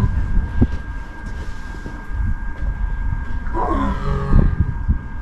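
A lion gives one short call about three and a half seconds in, lasting about a second, over a steady low rumble and a constant thin high tone.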